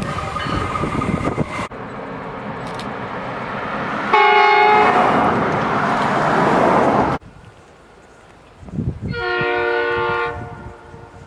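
Train air horns sounding as trains pass, over the rumble of the train. A short horn blast comes about four seconds in over loud passing-train noise, and another blast of about a second comes near the end. The train noise cuts off suddenly twice between separate recordings.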